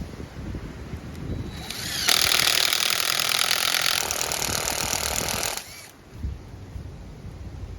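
A power tool running hard for about three and a half seconds, winding up at the start and winding down as it stops.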